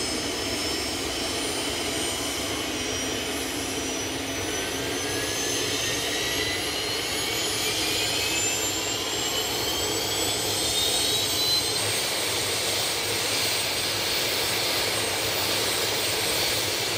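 MQ-8B Fire Scout unmanned helicopter's Rolls-Royce turboshaft engine running on the flight deck with a steady jet-like rush and high whine. About a third of the way in a whine starts rising in pitch, climbing steadily for several seconds, and cuts off abruptly just past the middle.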